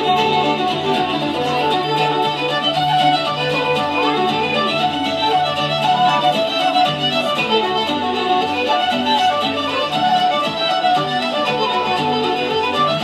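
Lively Irish dance tune led by a fiddle, playing without a break over a steady low bass note.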